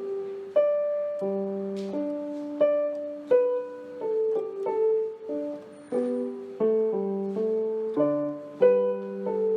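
Background music: a piano playing a gentle melody over chords, each note starting sharply and fading.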